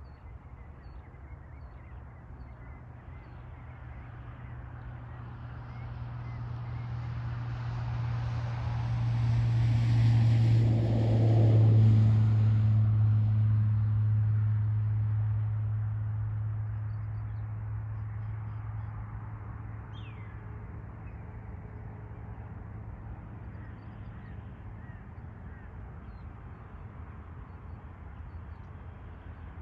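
A vehicle passing by, out of sight: a low engine hum that grows louder, peaks about a third of the way in with a drop in pitch as it goes past, then fades away. A short bird call comes about two thirds of the way in.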